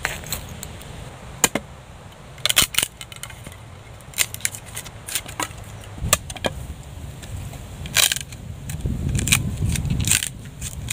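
Irregular sharp clicks and light clatter of things being handled, with a low rumble of handling noise near the end.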